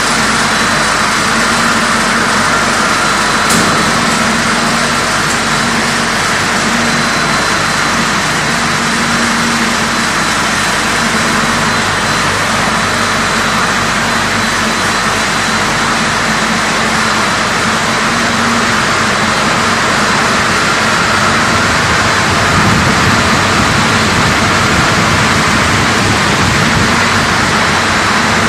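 Fully automatic macaroni production line running: loud, steady machine noise with a steady hum through it.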